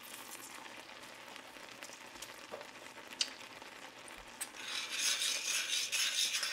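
Partridgeberries and sugar sizzling quietly in a stainless steel pot on the heat, with a few light clicks. About five seconds in, a metal spoon starts stirring the berries, scraping and clinking against the pot, louder than the sizzle.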